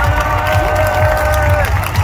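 A large stadium crowd cheering and shouting, with one long held voice rising above the din and falling away near the end.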